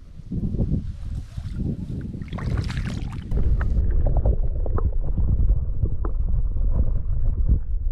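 Splashing and rustling as a camera is lowered into shallow river water. About three and a half seconds in, the sound turns dull and low: the muffled rumble of a microphone underwater, with faint knocks.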